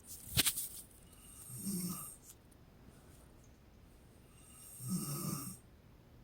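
A woman snoring in her sleep: two snores, about two seconds and five seconds in, the second longer, with a sharp click about half a second in as the loudest moment.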